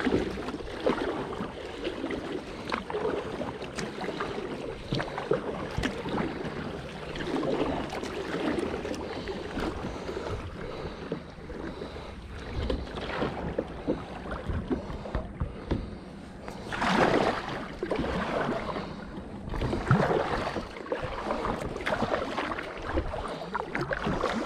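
Kayak paddle strokes dipping and splashing in churning, frothy river current, with irregular splashes and one louder splash about two-thirds of the way through.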